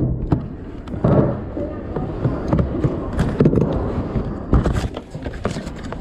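Low rumbling background noise with scattered sharp knocks and clicks and indistinct voices.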